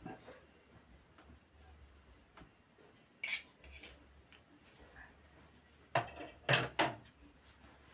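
Metal fork and spoon clinking against a glass bowl of grated potato and flour while it is stirred. There is a sharp clink about three seconds in, then a quick run of three louder clinks about six seconds in.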